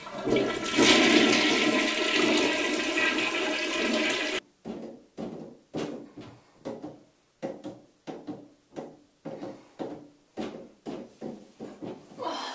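A toilet flushing for about four seconds, then cutting off abruptly. After it, metal clanking about twice a second, each knock ringing briefly: a plumber's tools striking the pipes under a bathroom sink.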